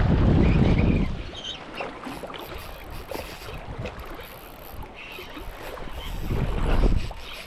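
Wind and water noise outdoors by the sea, with two loud low rushing surges, one at the start and one near the end.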